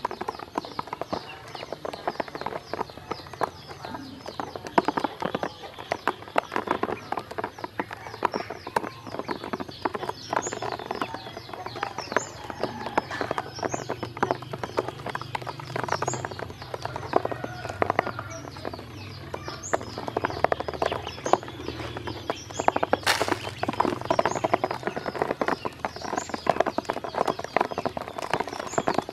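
A flock of ducklings pecking and dabbling in a plastic basin: fast, uneven clicking and tapping of bills and feet on the plastic, with short, high rising peeps now and then and one sharper knock a little past the middle.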